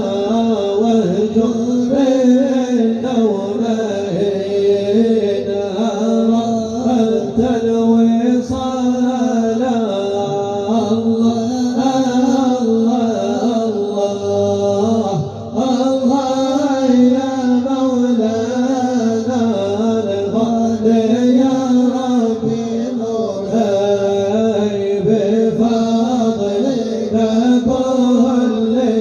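Male voices chanting an Islamic devotional praise song (madih nabawi) in a Middle Eastern style, with continuous sung lines over a sustained low tone.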